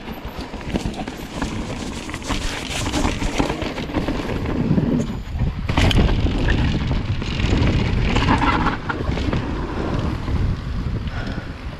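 Wind buffeting the microphone of a camera riding along on a bike through dirt jumps, with tyre and frame noise and scattered knocks. A sharp knock about six seconds in.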